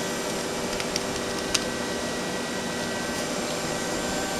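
CNC lathe's hydraulic unit running with a steady hum and several steady whining tones. A few small clicks from the control-panel keys, the sharpest about a second and a half in.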